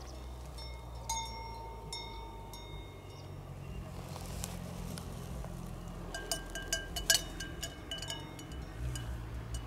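Cowbells on grazing cattle clanking: two single ringing clangs in the first couple of seconds, then a quicker run of clinks from about six seconds in, from a bell of different pitch.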